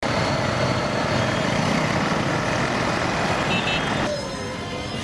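Busy road traffic of trucks and buses running, a steady dense noise, with a short double beep about three and a half seconds in. Just after four seconds it cuts to quieter street sound.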